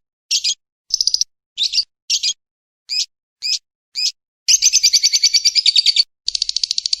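Lovebird and woodpecker calls on a masteran bird-song training track: a string of short sharp high-pitched chirps about two a second, then a long rapid chattering trill about four and a half seconds in, with a second faster trill starting near the end.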